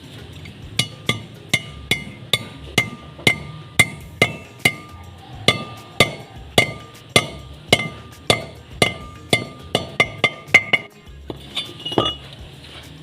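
Hammer blows on metal, about two a second, each with a short bright ring, during work on an Isuzu Trooper's front wheel hub bearing. The strikes stop about eleven seconds in, followed by a few lighter taps.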